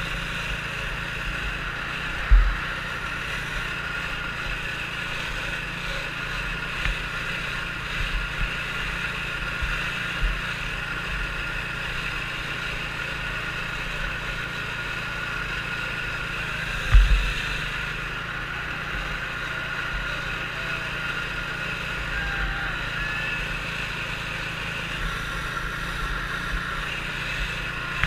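Small 120cc youth racing snowmobile engine running at a steady pitch as the sled drives along the course, with two brief low thumps, one about two seconds in and a louder one near the middle.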